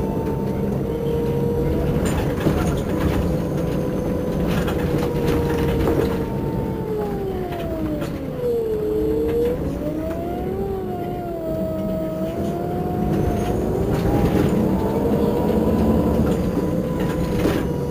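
Irisbus Crossway bus idling at a standstill: a low diesel rumble under a steady whine that sinks in pitch about seven seconds in, then climbs back and settles again.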